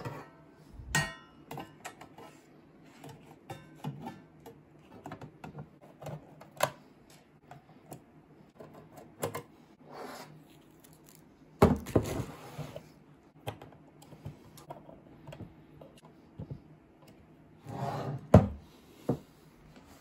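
Metal casing of a Bitmain APW7 power supply being handled and its cover fitted on a hard desktop: scattered small clicks, taps and knocks. There are louder clattering knocks about a second in, around the middle, and again near the end.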